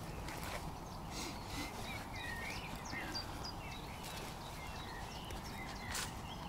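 Small birds chirping and twittering over a steady low outdoor hiss, with a few soft clicks.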